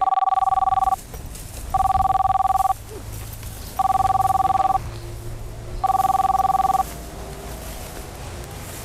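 Mobile phone ringing with a two-tone ring: four rings of about a second each, about two seconds apart, before it stops about two-thirds of the way through.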